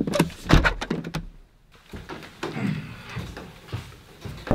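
A door being handled and shut, with a cluster of sharp thuds in the first second, the loudest about half a second in, then quieter indistinct noise.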